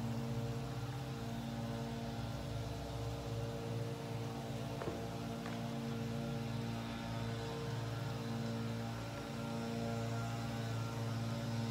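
Steady electric motor hum, even in level, with a couple of faint clicks about halfway through.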